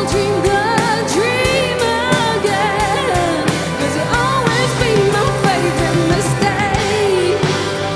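Live pop band playing a song: a sung melody that bends up and down over steady drum beats and bass.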